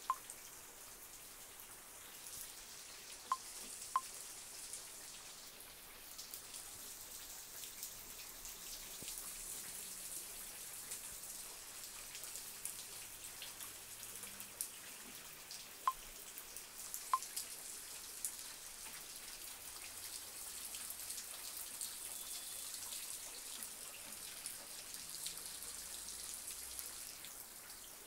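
Faint steady hiss with four soft, short ticks, two close together a few seconds in and two more around the middle.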